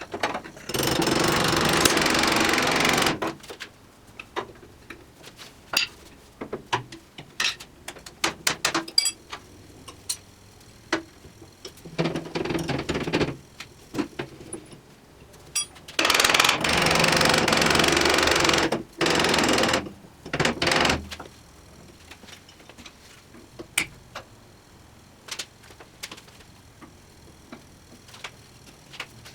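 A power tool run in four bursts of one to three seconds each, with many light metal clicks and knocks between the bursts as parts of a vintage table saw are taken apart.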